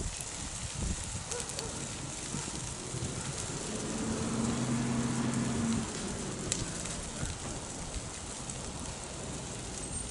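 Low surface fire in leaf litter and brush crackling steadily, with scattered sharp pops and one louder snap past the middle. A low droning hum swells up for a couple of seconds midway, then fades.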